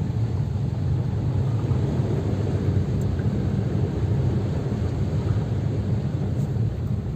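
Car moving through flooded streets: a steady low rumble of engine and road noise.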